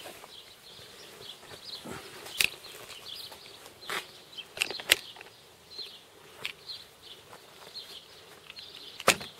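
Quiet outdoor ambience with scattered short high chirps and about half a dozen sharp clicks and knocks at irregular times, from the camera being handled as it swings round.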